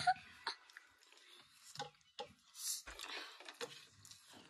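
People eating momos with their hands: faint chewing and mouth sounds, breaths, and scattered small clicks and taps.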